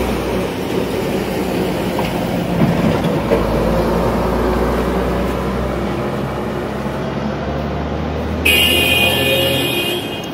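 City street traffic: vehicle engines running and a steady rumble of passing traffic. About eight and a half seconds in, a shrill, high tone sounds for just over a second.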